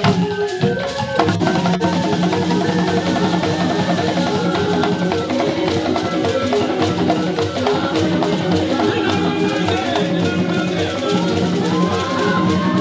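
Entenga royal drums of Buganda, a set of tuned drums played with curved sticks, sounding a fast, dense interlocking pattern of pitched strokes.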